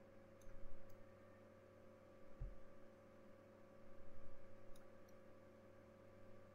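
Faint steady electrical hum from the recording setup, with a few soft clicks and a low thump about two and a half seconds in, typical of a mouse or pen tablet being worked at the desk.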